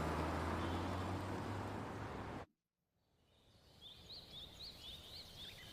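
A low steady hum that fades and cuts off about halfway, then after a short silence faint small-bird chirps, about five short rising calls.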